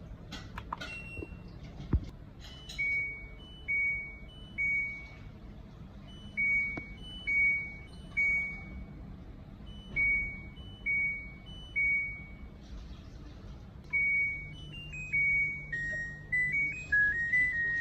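LG F1496TD24 washing machine's electronic beeper: a short two-note blip, high then lower, sounds about a dozen times at uneven spacing after a few clicks. Near the end it plays a quicker little tune of stepping notes, with a low hum starting beneath it.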